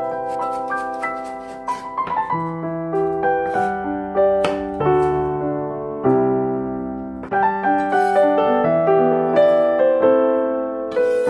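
Background music: a gentle solo piano melody, with notes struck one after another and left to ring.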